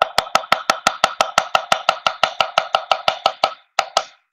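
Chinese cleaver rapidly chopping purple cabbage into shreds on a wooden cutting board, an even run of sharp knocks about seven a second. The run breaks off a little after three seconds, then a couple more chops follow.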